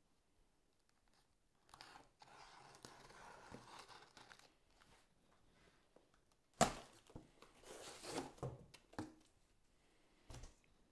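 Cardboard shipping box being opened: a blade slitting the packing tape for a couple of seconds, then a sudden loud rip about six and a half seconds in as the cardboard is pulled apart, followed by several seconds of cardboard rustling and scraping.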